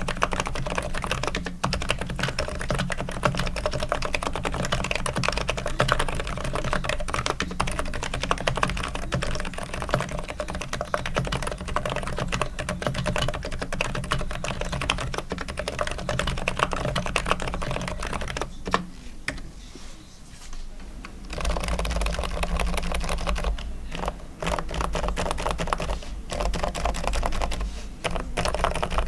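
Continuous fast typing on an ABKO KN10BT electrostatic capacitive (Topre-style) keyboard, first in its stock, unlubricated state. After a short lull about 20 seconds in, typing resumes on the same keyboard fully lubricated, with replaced slider O-rings, lubed springs and levelled stabilizers.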